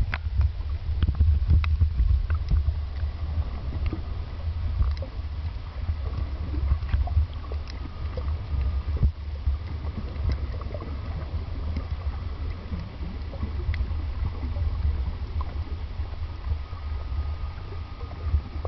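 Muffled underwater sound through a camera's waterproof housing: a steady low rumble of moving water with scattered clicks and crackles, and a faint steady whine in the second half.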